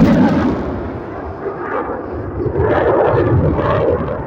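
F-16 fighter jet's engine noise, a loud rumble from the jet pulling a tight high-G turn. It eases off after the first second and swells again about two and a half seconds in.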